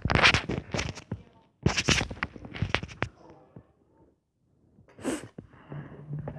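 Ramen noodles being slurped and eaten, in several short, loud, airy slurps with pauses between them.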